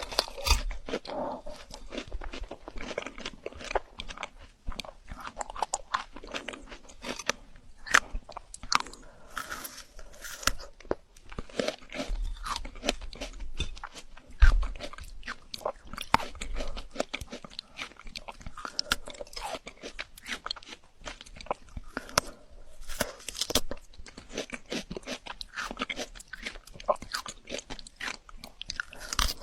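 Someone biting into and chewing frozen fruit, with many sharp, irregular crunches and crackles in quick succession.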